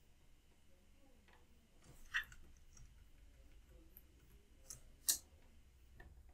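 About four faint, sharp clicks of a computer mouse, spread out over quiet room tone, the loudest about five seconds in.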